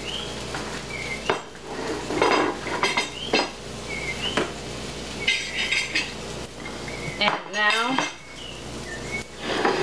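Bowls and a plate knocking and clinking on a tiled counter while a fish fillet is dipped in egg and pressed into breadcrumbs, with several sharp knocks spread through.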